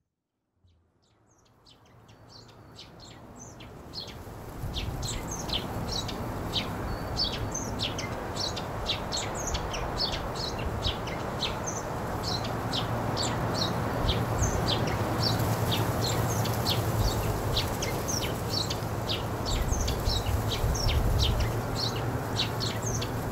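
Many small birds chirping in quick, irregular, short falling calls over a steady outdoor background hiss, fading in over the first few seconds.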